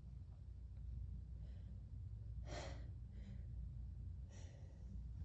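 A person with a cold taking faint, sharp, gasping breaths between sneezes, four short inhalations in a row, the strongest about halfway through, as the next sneeze builds.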